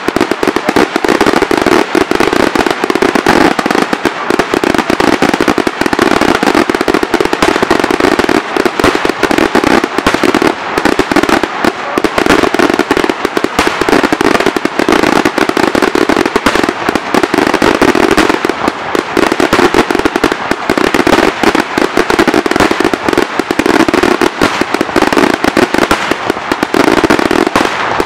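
Aerial fireworks shells going off in a dense, unbroken barrage, reports following one another many times a second with crackle between them.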